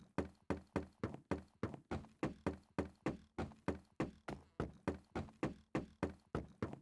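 An evenly repeating run of sharp knocks, about four a second, each dying away quickly, over a faint steady hum.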